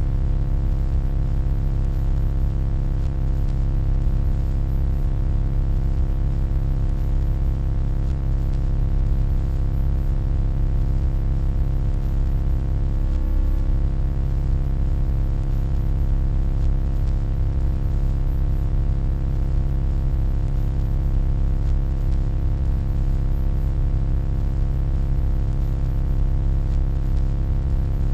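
Steady, unchanging electronic hum: a deep drone with a stack of steady overtones above it.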